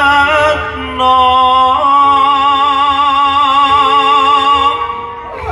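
A singer holding one long note with a wide vibrato from about a second in to near the end, over steady instrumental accompaniment.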